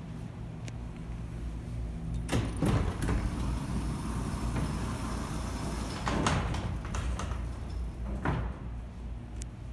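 Vintage Westinghouse freight elevator's vertical bi-parting Peelle power doors opening, with loud metallic clanks and bangs about two, three, six and eight seconds in, over a steady low machine hum.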